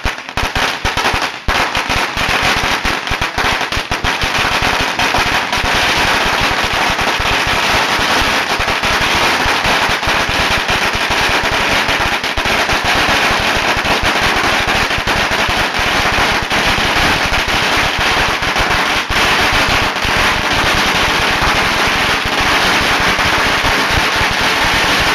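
A long string of firecrackers going off: scattered bangs that within the first couple of seconds run together into a continuous, very rapid crackle of loud reports.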